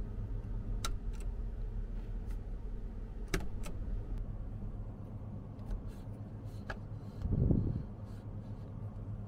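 Sharp clicks of a wall-mounted rocker switch for a capsule's air conditioning being pressed, over a steady low hum. Near the end comes a brief, louder rush of low noise as the round metal air volume control vent is turned.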